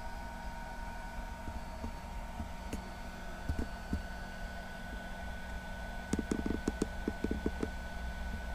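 Light clicks and taps of handling, over a steady low hum, with a quick run of them between about six and seven and a half seconds in.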